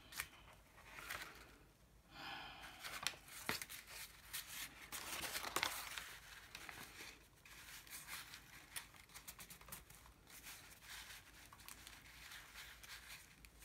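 Faint rustling and crinkling of a sheet of painted paper as hands smooth and press it flat onto a page, with a few soft ticks.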